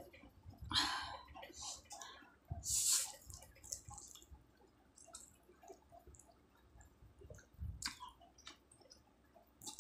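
A person slurping forkfuls of instant noodles twice in the first few seconds, then chewing with small wet clicks. A couple of sharper clicks come near the end.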